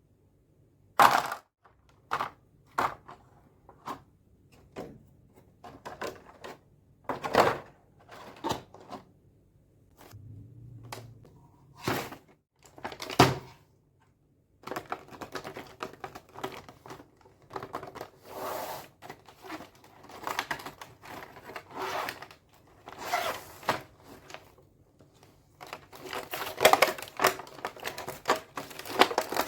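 Plastic toy makeup set pieces being handled: irregular clicks, taps and knocks, with denser rustling and clattering from about halfway through.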